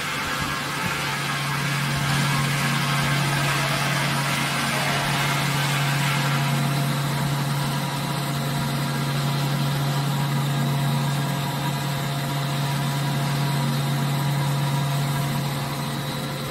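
Vacuum dispersing mixer's electric drive running with a steady hum, a strong low tone under several fainter steady tones. A hissy noise on top fades out about six and a half seconds in.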